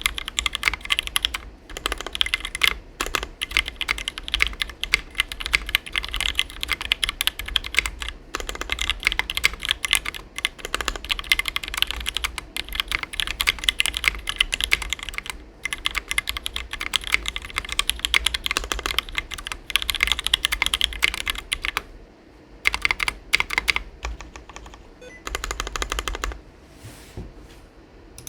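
Fast typing on a Tofu60 custom mechanical keyboard with lubed and filmed Gateron Black Ink linear switches on a brass plate and EPBT doubleshot keycaps: a dense, steady run of key clacks that thins to scattered bursts of keystrokes after about 22 seconds and stops shortly before the end.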